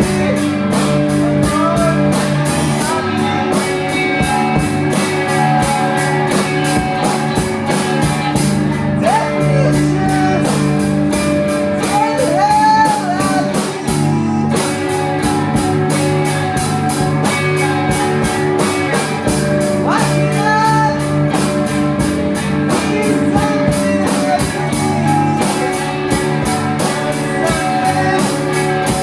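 Live rock band playing, with electric guitar over a steady drum beat and a few bending, sung-sounding lines.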